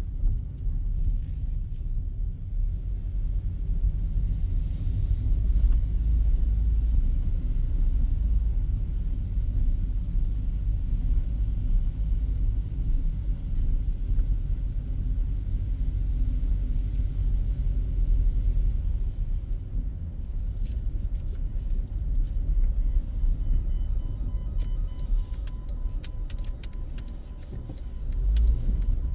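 Low, steady engine and tyre rumble of a car driving at low speed, heard from inside the cabin. There are a few light clicks near the end.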